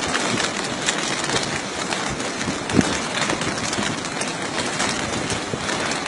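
Rough sea in a strong wind: waves breaking and surging, heard as a steady rushing noise.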